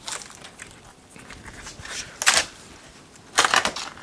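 A superglued wooden piece being pried off the back of an epoxy-coated panel: two short bursts of cracking and crackling, about two seconds in and again shortly before the end, as the glue joint gives way.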